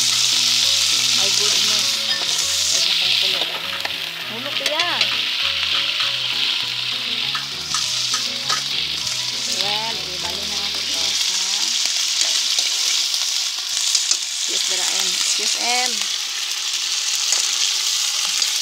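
Tuna flakes sizzling in hot oil in a small steel frying pan, stirred and scraped with a metal spoon.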